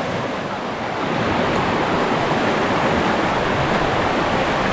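Steady rushing of river water, an even roar with no distinct splashes, growing slightly louder about a second in.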